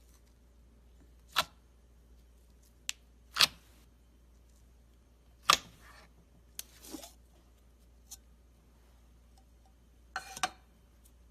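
Slime being pressed and stretched by hand, giving a few sharp, loud pops and clicks a couple of seconds apart, with softer ticks and a short squelchy rustle between them.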